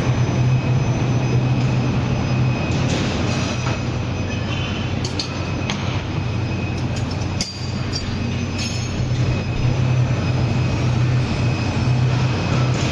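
Steady industrial machine noise: a continuous low hum with a thin high whine over it, and a few sharp clicks about halfway through.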